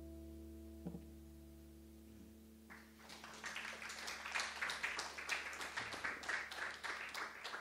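An acoustic guitar's last chord rings on and fades away; about three seconds in, an audience starts applauding.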